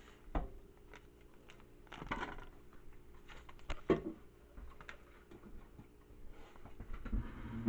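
Scattered light clicks and knocks of close handling, with louder knocks about half a second in, around two seconds and near four seconds, over a faint steady hum.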